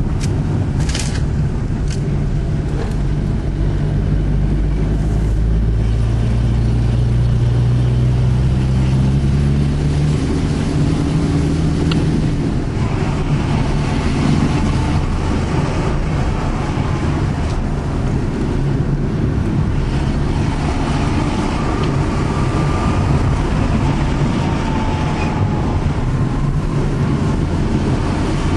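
Car engine and road noise heard from inside the cabin while driving. The engine note climbs for several seconds as the car picks up speed, then settles into a steady rumble of engine and tyres on the road.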